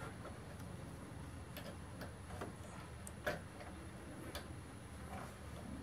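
Scattered light clicks and ticks of the wires and a plastic connector being handled and fitted into the sheet-metal back panel of a Masterbuilt electric smoker, the sharpest click about three seconds in, over a steady low hum.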